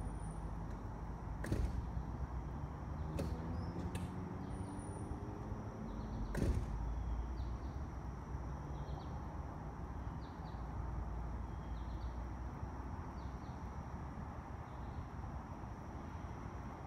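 Woodland outdoor ambience: a steady low rumble with a faint high steady whine, a low hum that slowly falls in pitch over the first six seconds, and a few sharp clicks in the first seven seconds, the loudest about six and a half seconds in.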